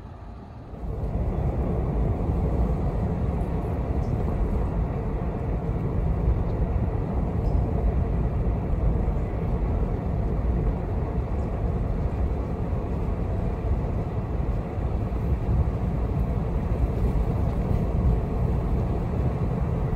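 Steady low rumble of a moving vehicle, road and engine noise, coming up about a second in and holding even.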